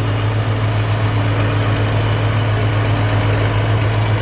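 Thai Seng combine harvester's diesel engine running steadily under harvesting load: a constant deep hum, with a thin high whine that slowly drops in pitch.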